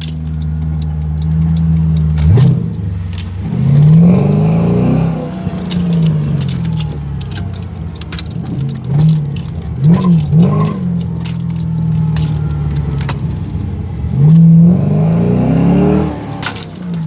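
A car engine running under way, its revs climbing and dropping several times as it accelerates and the automatic gearbox shifts. The driver says the engine is misfiring cylinders.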